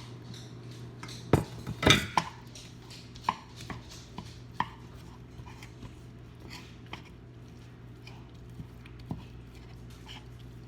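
A kitchen utensil knocking and scraping against a bowl or pan while raw seasoned ground beef is mixed and broken up: irregular clacks, the loudest pair about two seconds in, growing sparser after about five seconds.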